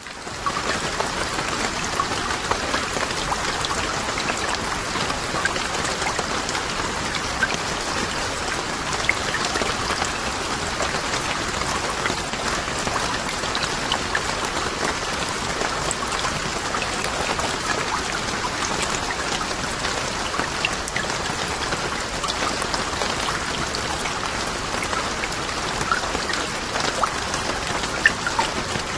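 Steady hiss like rain falling on a surface, with faint scattered ticks.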